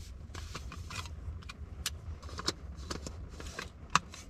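Handling noise from a DSLR camera and its lens cap: scattered small clicks and rattles, with one sharper click near the end. Under them is a steady low rumble inside a car.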